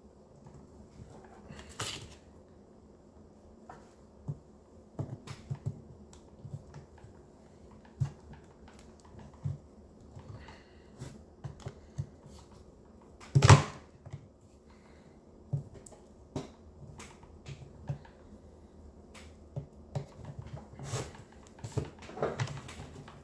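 Scattered clicks, taps and knocks of hand tools and plastic parts while a Stihl MS250 chainsaw's rear handle is worked loose with pliers and a screwdriver. One louder knock comes about halfway through.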